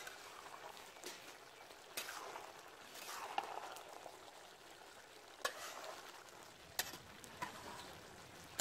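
Metal ladle stirring a thick vegetable and fish curry in a large cooking pot, knocking and scraping against the pot with a sharp clink every second or so, over a faint simmering sizzle.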